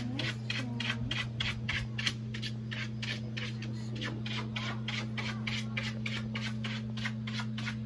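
Rhythmic dry scratching or rasping, about four even strokes a second, over a steady low hum.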